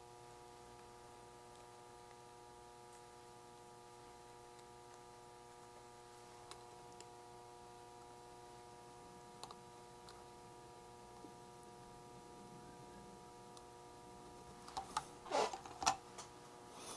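Faint steady electrical hum with a few soft clicks, then a short run of louder clicking and rattling near the end: small electronic parts and tools being handled at a workbench during the soldering of a kit.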